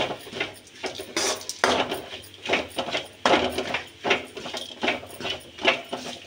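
Steel spoon scraping and knocking against a metal kadai, stirring a thick frying garlic-chilli paste, in irregular strokes about two a second.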